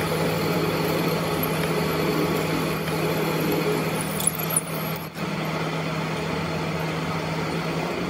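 Metal lathe running with a steady motor hum while a twist drill bores into the spinning metal workpiece, with two short clicks a little past the middle.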